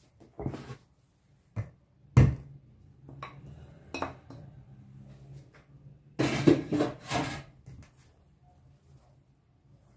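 Kitchen utensils knocking and clinking against a bowl: a few separate knocks, the loudest about two seconds in, then a quick run of clatter around six to seven seconds.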